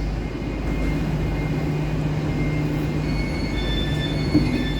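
Two coupled Hitachi Class 802 bi-mode trains running with a steady low hum. From about three seconds in, several thin high whines join it.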